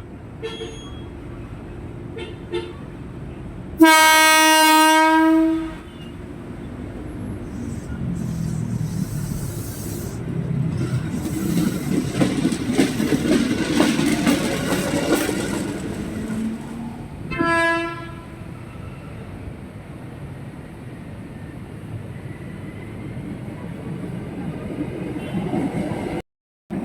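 KRL Commuterline electric commuter train sounding its horn in one long blast of about two seconds, followed by the train running past with a rising rumble of wheels on rail, and a second short toot of the horn about two-thirds of the way through.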